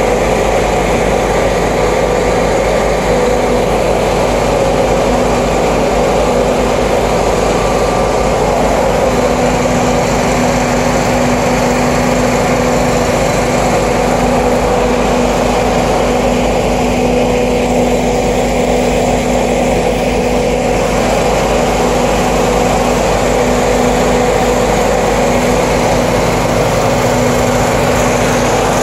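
A motor running loudly and steadily at a constant pitch, with no change in speed.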